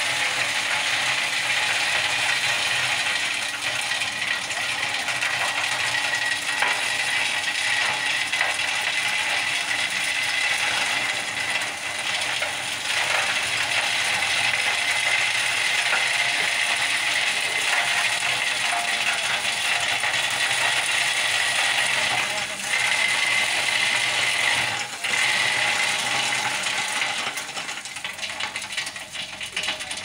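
Tipper truck dumping a load of gravel: crushed stone sliding and rattling out of the tilted bed onto the road in a steady continuous pour, with a thin steady whine beneath it.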